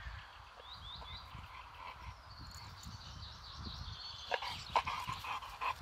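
Birds chirping in the background, short high notes that drop in pitch, over a low rumble of wind on the microphone. Near the end comes a quick run of clicks and knocks.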